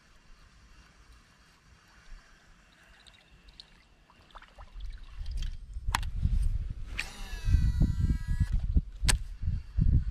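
Baitcasting reel spool whirring for about a second and a half during a cast, with sharp clicks before and after. A heavy low rumble of handling and wind noise on a body-worn camera runs under it and is the loudest part.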